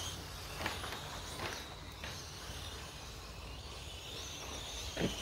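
Electric 1/10-scale RC short course trucks running on a dirt track, heard at a distance: a faint high motor whine that rises near the end, over outdoor background noise, with a few light knocks from the trucks, the loudest near the end.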